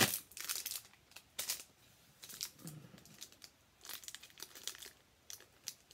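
Candy packaging crinkling as it is handled: a loud rustle at the very start, then scattered short crinkles as a peppermint bark bar wrapper is turned over in the hands.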